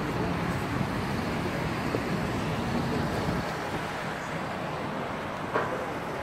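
Steady road traffic noise of cars passing, with a single short sharp knock about five and a half seconds in.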